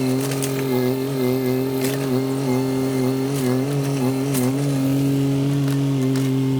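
Mini excavator engine running, its pitch wavering slightly under load for the first few seconds, then steady, with a few sharp metallic knocks.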